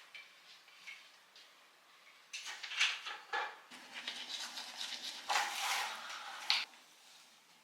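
Household handling noises: a few rustles and light clattering of objects, the longest burst in the second half.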